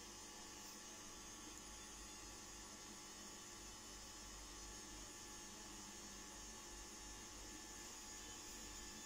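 Near silence: a steady low hum under faint background hiss, with no distinct events.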